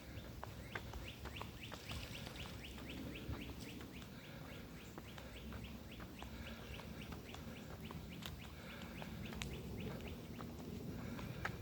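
A steady run of short high chirps from a small animal, about three or four a second, over low outdoor background noise.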